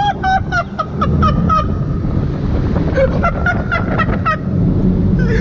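Car tyres squealing on a smooth parking-garage floor as the car turns, in runs of short high chirps, one at the start and another about three seconds in, over a low engine rumble heard from inside the cabin.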